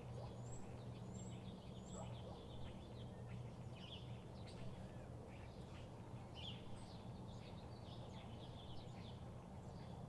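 Faint dawn chorus of many birds calling with short chirps and a few brief high whistles, over a steady low hum.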